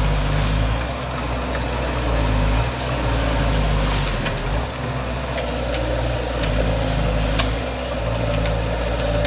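Bobcat skid steer's diesel engine running steadily, its pitch shifting as the machine works against a load to pull out a tree. A few sharp knocks sound over the engine.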